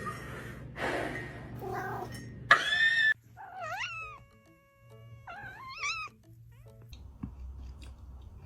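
A domestic cat meowing and yowling: several drawn-out calls that rise and waver in pitch over the first six seconds, the loudest about two and a half seconds in, then it falls quiet.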